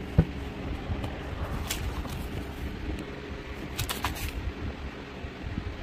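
Hard plastic toy being handled: a sharp knock just after the start, then a few light clicks and rustles over a low rumble of handling noise.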